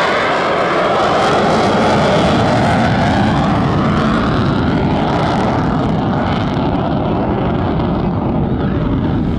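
F-35C Lightning II's Pratt & Whitney F135 afterburning turbofan at full afterburner, a loud jet roar as the fighter climbs away. The highest, hissing part of the sound thins out over the last few seconds as it draws off.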